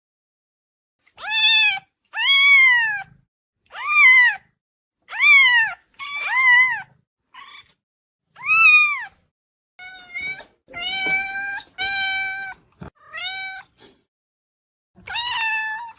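Domestic cat meowing about a dozen times in a row. The first calls rise and fall in pitch; from about two-thirds of the way through they become flatter and steadier, and the last comes near the end.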